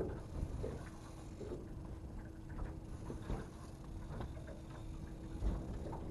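Fishing reels clicking irregularly as they are cranked against bent rods while fish are fought in, over a constant low rumble and a faint steady hum.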